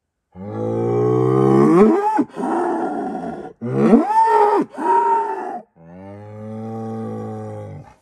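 Angus bull bellowing: three long calls in a row, the first two rising sharply in pitch partway through, the third lower and steadier. A herd sire's territorial challenge to neighbouring bulls.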